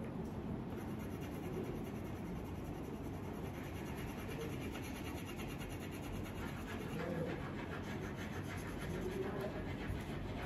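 Yellow crayon rubbing back and forth on paper as an area of the drawing is coloured in: a steady scratchy shading sound.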